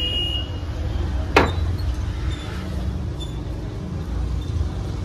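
Low, steady rumble of road traffic, with one sharp knock about a second and a half in.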